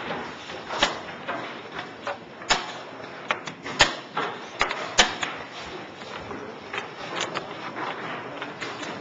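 Blitz chess play: plastic chess pieces clicked and knocked down on a roll-up vinyl board at an irregular quick pace, the sharpest knocks about four and five seconds in, over a steady murmur of a crowded room.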